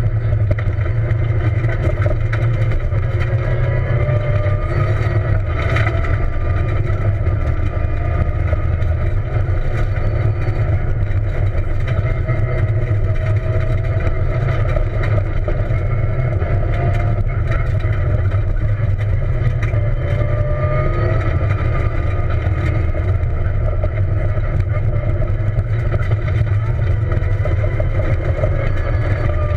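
Peugeot 207 rally car at speed on a dirt road, heard from inside the cabin: the engine running hard with its revs rising and falling, over a heavy rumble from the tyres and body on the gravel, with an occasional sharp tick of stones.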